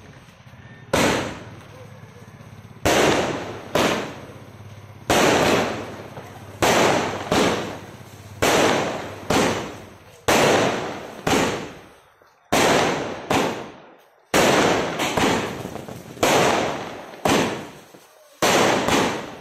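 A 30-shot multicolour aerial firework cake firing its shots in rapid succession. Sharp bangs come about every half second to second and a half, starting about a second in, and each one fades quickly away.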